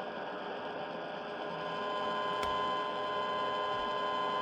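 Sangean ATS-909X2 shortwave receiver's speaker on the medium- or long-wave band, giving steady hiss with several steady whistling tones. About two seconds in it gets a little louder and a whine near 1 kHz comes up, followed by a single short click.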